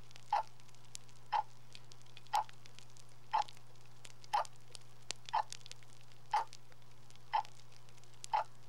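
A clock ticking steadily about once a second, over a steady low hum.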